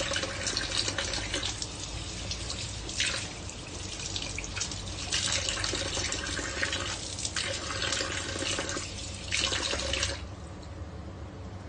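Kitchen tap running into a sink while a bunch of chili pepper leaves is rinsed under it; the splashing rises and falls as the leaves are moved through the stream. The tap is shut off about ten seconds in.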